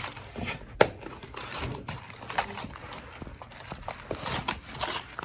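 Flexible plastic racetrack pieces being handled and clicked together: a string of irregular small clicks and light knocks, with one sharper click just under a second in.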